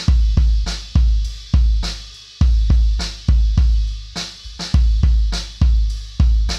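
Raw close-mic recording of a drum kit's bass drum: a round, muffled kick thud about every half second. Snare hits and cymbals leak audibly into the microphone.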